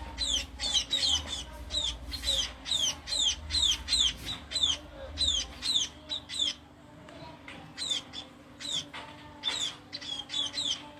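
Small birds chirping busily: many short, high calls, each sliding quickly downward, several a second, with a brief lull a little past halfway.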